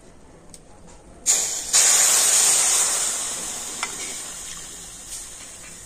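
Milk poured into a hot wok of semolina fried in ghee, hissing and sizzling as it hits the hot metal. It starts suddenly about a second in, surges again a moment later, then slowly dies down.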